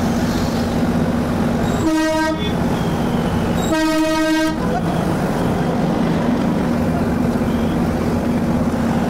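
Darjeeling Himalayan Railway toy-train locomotive sounding its whistle twice, a short blast about two seconds in and a longer one about a second and a half later, over the steady low rumble of the locomotive running.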